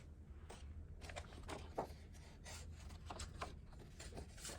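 Scissors cutting through a sheet of craft paper: a run of quiet, irregular snips and paper rustles.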